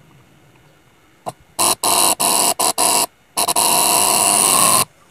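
KADA 1250G gas compressor's electromagnetic coil unit giving a loud, harsh buzz as hand-held wire leads are touched to its coil connections to power it. The buzz starts about a second and a half in, cuts out and comes back several times as the contact is made and broken, then stops near the end.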